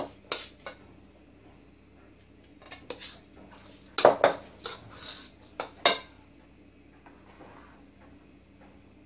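Metal spoon scraping and clinking against a mixing bowl while stirring dry crushed Oreo cookie crumbs. The sound comes in short bursts, loudest about four to six seconds in.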